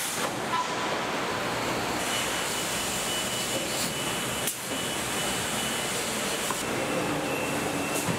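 Steady assembly-plant floor noise: an even hiss and hum of machinery and conveyors, with faint high tones from equipment coming and going. The sound dips briefly about halfway through.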